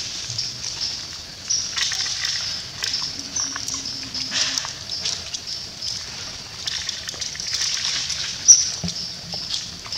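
Scattered rustles and crackles of dry leaves as long-tailed macaques shift about on leaf-strewn ground, over a steady shrill high hiss with repeated short high chirps, the loudest about eight and a half seconds in.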